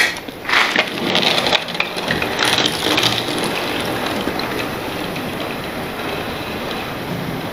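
Camera handling noise: a sharp knock, then a couple of seconds of crackling and rustling as the camera is moved and set down, followed by a steady noise.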